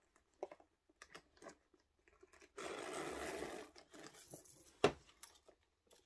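Handling of a metal chain bag strap: scattered light clicks of the links, a rustle lasting about a second in the middle, and one sharp click a little before the end.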